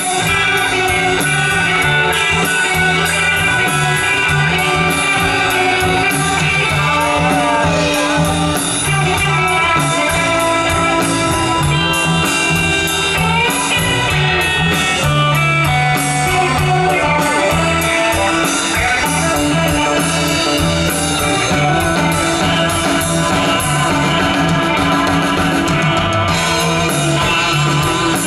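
Live rock band playing an instrumental passage: electric guitars over bass and drums, with a lead guitar playing gliding notes.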